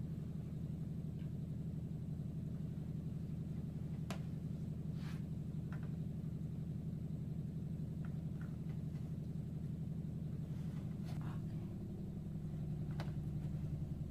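A steady low mechanical hum, its tone shifting slightly about eleven seconds in, with a few faint clicks or taps over it.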